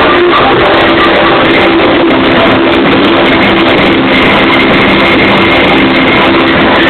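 Music played loud through a car audio speaker system, a dense, unbroken wall of sound with held melody notes over it.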